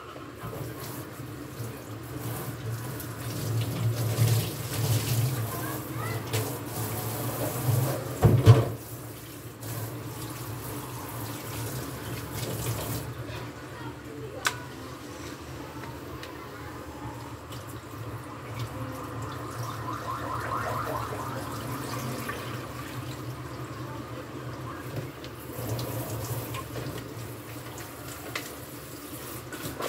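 Tap water running and splashing into a steel kitchen sink as hands are washed under it, louder in the first several seconds. A sharp knock about eight and a half seconds in.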